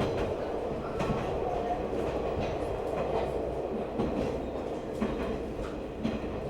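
Train running along the track, a steady rumble with wheels clicking over rail joints about once a second.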